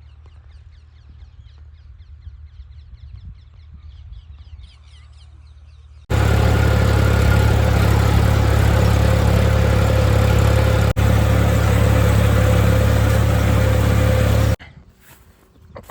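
Tractor engine running loud and steady close by, cutting in suddenly about six seconds in and stopping suddenly near the end, with a brief dropout about eleven seconds in. Before it, only a faint low hum.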